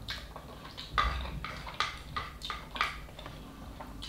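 A person blowing on and slurping hot instant noodle soup from a wooden ladle, in a string of short slurps and puffs about every half second.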